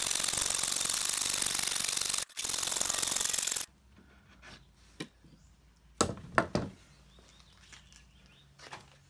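Handsaw cutting through a reclaimed pallet-wood board in a fast, continuous rasp that stops abruptly about three and a half seconds in. A few sharp knocks of wood follow about six seconds in.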